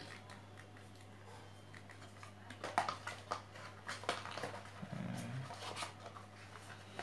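Faint handling sounds of a plastic feature phone and its cardboard box: scattered light clicks, taps and rustles over a steady low hum. About five seconds in comes a brief low-pitched sound, about half a second long.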